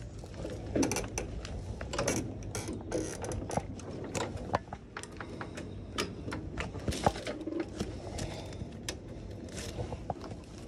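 Irregular mechanical clicks, knocks and rattles, like small hard objects being handled, with a louder knock about seven seconds in.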